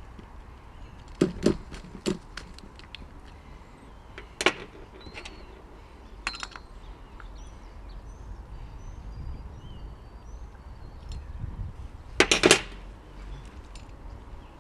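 Scattered sharp clicks and metallic knocks of hand tools working on a nitro RC car's engine, with the loudest cluster of knocks near the end.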